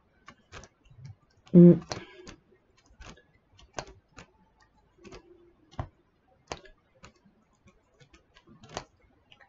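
Diamond painting: small resin drills being picked up and pressed onto the adhesive canvas, making light, irregular clicks and taps. One short vocal sound about a second and a half in is the loudest thing.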